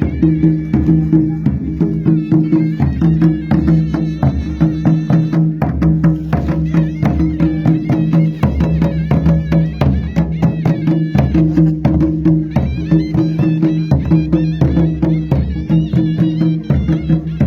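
Traditional folk music: fast, dense drum and percussion strokes over steady held low tones.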